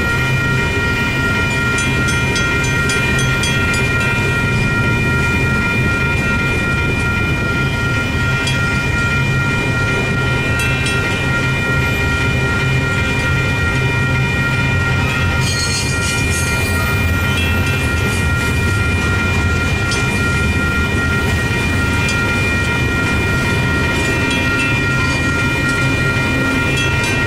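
Double-stack intermodal freight train rolling through a grade crossing: a steady low rumble of wheels and cars, with the crossing's warning bell ringing in steady high tones over it. A brief hiss comes about sixteen seconds in.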